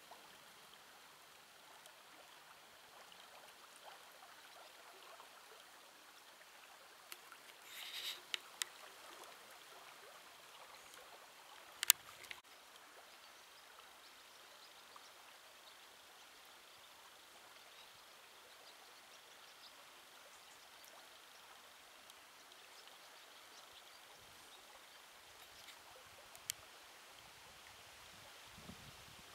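Faint, steady rush of a shallow, stony river flowing at low summer water. A few short clicks break in around eight seconds in, with one sharp, loud click about twelve seconds in.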